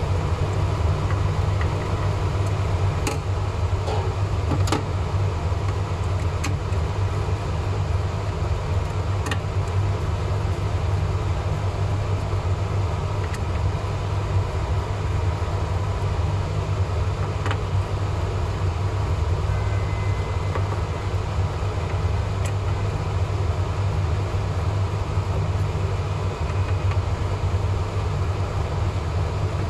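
Steady low drone of the cleanroom's air-filtration fan, with a few light clicks of handling now and then.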